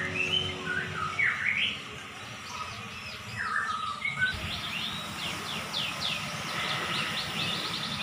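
Caged songbirds chirping and calling: a few whistled notes at first, then from about halfway through a busy run of quick downward-sweeping chirps from several birds at once.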